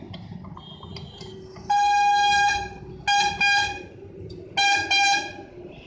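A vehicle horn honking: one long blast, then two pairs of short toots.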